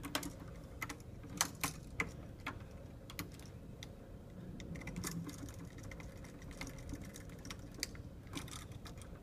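Faint, irregular small clicks and ticks from hand work on a wall switch: a screwdriver turning its brass terminal screws down onto the looped copper wires.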